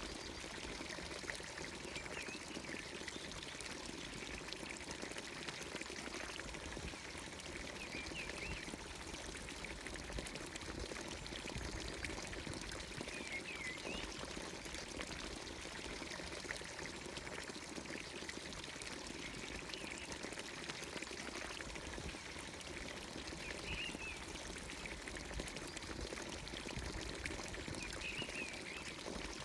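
Water pouring steadily from the spout of a traditional Anatolian village fountain into its trough. A few short, faint bird chirps come now and then over it.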